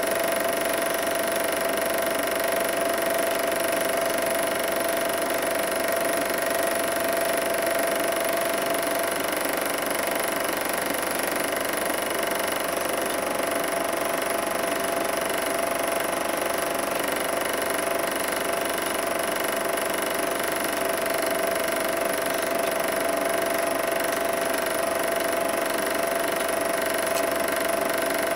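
Super 8 film projector running steadily: the motor and fan whirring with a constant hum, under the rapid, even clatter of the film-advance mechanism.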